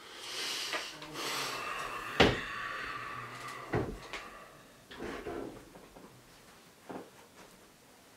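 Someone getting up and moving about: rubbing and scraping for the first three seconds, with a sharp knock a couple of seconds in, then several more wooden knocks and bumps, like a drawer or cupboard being opened and shut.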